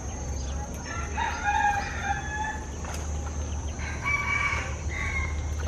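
A rooster crowing twice, each crow lasting about a second, the second coming about three seconds after the first.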